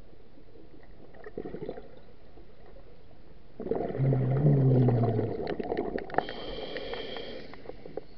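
Scuba regulator breathing, heard underwater from the diver's chest: an exhalation about three and a half seconds in, with bubbles rumbling out past the exhaust valve and a low wavering buzz, then an inhalation hiss through the second stage near the end.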